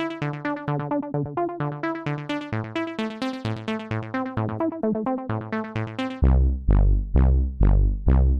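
Electronic phone ringtone: a quick run of short, plucked synthesizer notes, about five a second. A little over six seconds in it switches abruptly to louder, slower notes over a deep bass.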